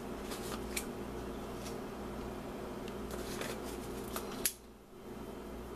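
Faint clicks and rustling from a paprika container being handled and shaken over the pot, over a steady hum. A sharp click comes about four and a half seconds in, after which it is quieter.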